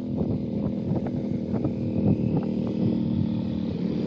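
Utility vehicle (side-by-side UTV) engine running steadily as it drives up, with a few light clicks over it.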